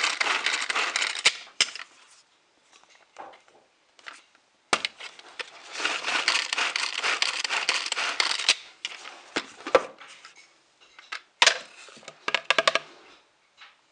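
Tupperware Quick Chef Pro hand-cranked food processor chopping cranberries: a dense, fast rattling of the crank and spinning blades, in two spells a few seconds apart. Near the end come scattered sharp clicks and knocks as the plastic lid and blade are handled.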